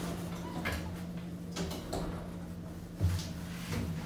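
Otis Gen2 elevator's sliding car doors closing, with a few metallic clicks over a steady low hum. There is a thump about three seconds in.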